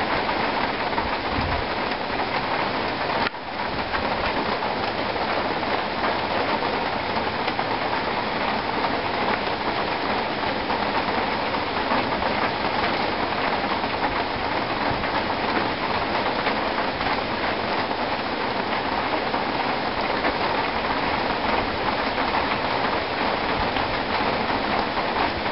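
Rain falling steadily on trees and foliage, a dense even hiss, with a brief break about three seconds in.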